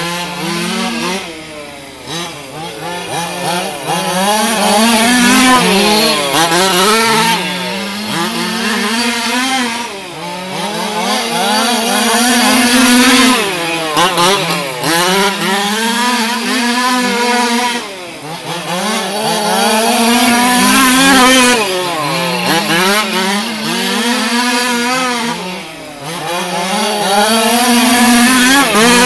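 Small two-stroke engines of gas-powered, large-scale RC cars (HPI Baja type) running hard as the cars lap an oval. The buzzing pitch swells and falls again about every four seconds as they pass.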